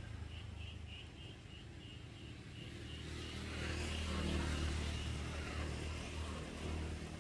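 Low engine rumble that swells to its loudest about four seconds in and then eases off, as of a motor vehicle passing. A faint high chirp repeats about three times a second during the first few seconds.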